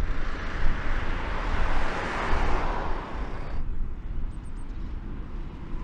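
Mercedes Sprinter 316 CDI pickup driving past, its tyre and engine noise swelling to the loudest point a little past two seconds in, then cut off abruptly about three and a half seconds in. Low wind rumble on the microphone runs underneath.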